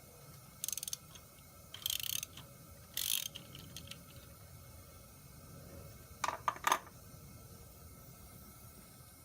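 Hand tools working metal on an LS cylinder head: three short bursts of rapid ratcheting clicks, then a quick cluster of sharper metallic clicks.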